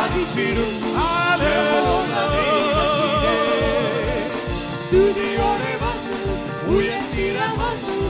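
Live Christian worship band playing a Malayalam praise song: sung vocals over drums, with a steady, regular drum beat. In the middle a voice holds a long, wavering note.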